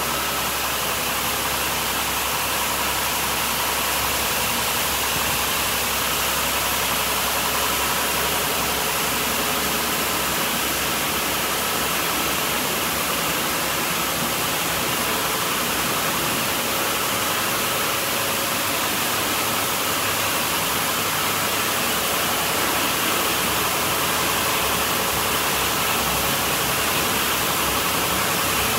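Mark VII Merchandiser in-bay automatic car wash running mid-cycle: a steady hiss of water or soap spray against the car over the machine's running noise.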